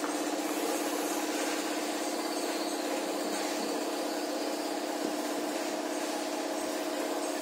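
A machine or engine running with a steady, even hum that holds one pitch.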